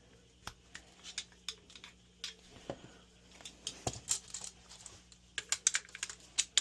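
Irregular light clicks and taps of tools and dryer parts being handled during a repair, coming faster and louder near the end.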